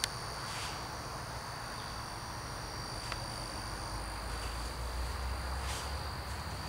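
Steady, high-pitched calling of an animal chorus, with a faint low rumble beneath.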